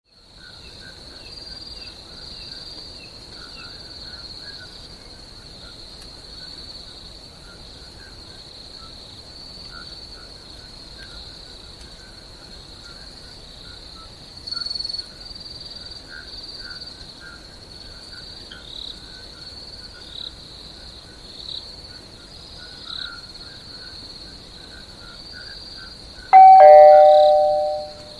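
Night insects chirring steadily at a high pitch, with lighter broken chirping underneath. About 26 seconds in, a loud ding-dong chime sound effect rings out and fades over about two seconds.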